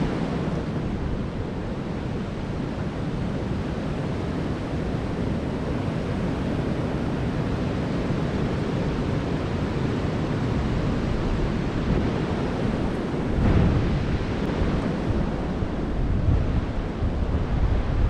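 Wind buffeting the microphone: a steady low rush, with stronger gusts about two-thirds of the way through and again near the end.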